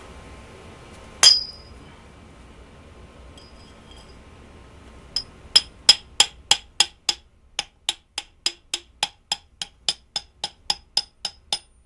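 A hammer tapping on a length of pipe used as a seal driver, seating a new propeller-shaft seal in an outboard lower unit's bearing housing. It comes as a steady run of ringing metal taps, about three a second, starting about five seconds in. A single sharp metallic clink sounds about a second in.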